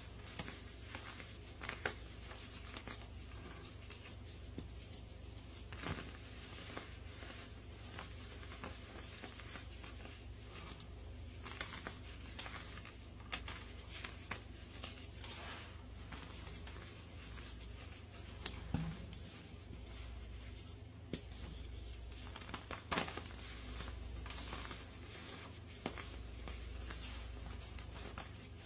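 Hands crushing a hard, super crunchy block of reformed baking soda into powder: irregular dry crunching and crumbling, with a few sharper cracks.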